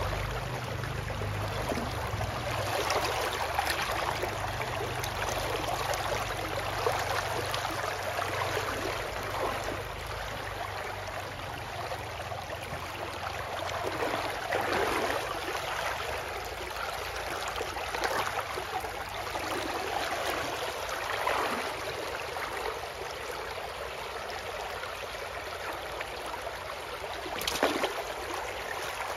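Shallow river water sloshing and splashing as an arm gropes around inside a bamboo polo fish trap, coming in irregular swells every few seconds, with a sharper splash near the end.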